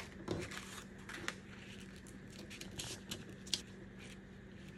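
Crepe paper folded along a crease and pressed flat by hand: faint rustling with a few soft crinkles and ticks.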